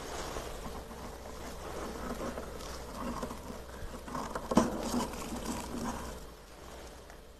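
A hand rubbing and pressing into thick, fluffy freezer frost: a soft crackling rustle, with a sharper crunch about four and a half seconds in.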